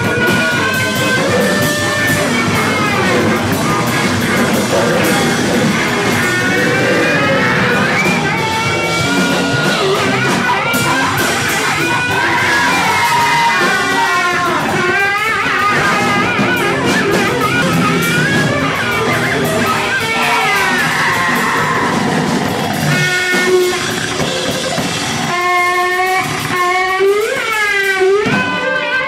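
Live band playing loud, dense music: electric guitar and drums under sliding pitched tones that swoop down and back up, most clearly in a run of repeated swoops near the end.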